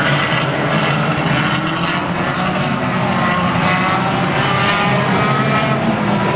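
Engines of several banger racing cars running together on the track, a steady mixed engine noise with repeated rising pitch as drivers rev and accelerate.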